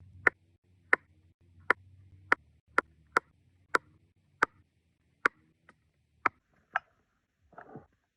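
A series of about a dozen sharp knocks, spaced unevenly at one to two a second, each with a short ring, followed by a brief rustle near the end.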